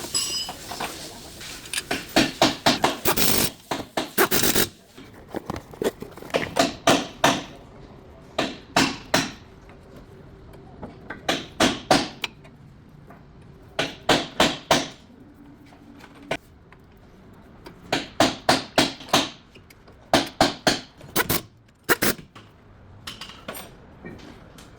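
Hammer blows in quick bursts of about four to six sharp strikes, repeated again and again, with some scraping between, during front brake work.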